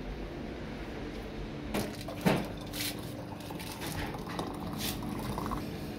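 A few light knocks and clinks, then hot water poured from an electric kettle into an enamel teapot, over a low steady hum.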